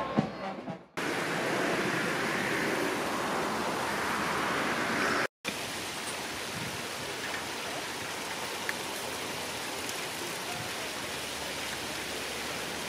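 Brass band music ending in the first second, then a steady rush of water spilling down a stepped fountain into a pond, with a brief break about five seconds in.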